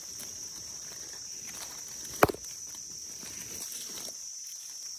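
Dry leaf litter rustling as hands clear leaves around mushrooms growing on the forest floor, over a steady high insect drone. One sharp knock about two seconds in.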